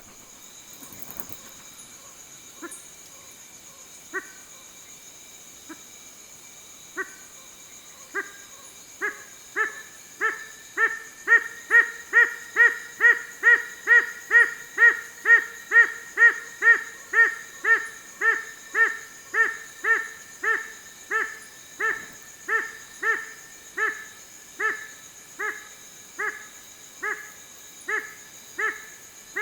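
Madagascar owl (Madagascar long-eared owl) calling: a few spaced short notes, then a long even run of short barking notes about two a second, loudest about halfway and easing off toward the end. A steady high insect buzz runs underneath.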